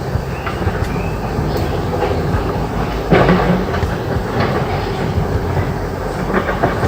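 A steady mechanical rumble with irregular clattering clicks and knocks, and a louder knock about three seconds in.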